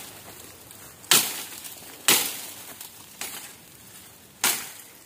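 Machete chopping into dry bamboo litter and soil to dig out a wild bamboo shoot: four sharp strikes about a second apart, the third one lighter.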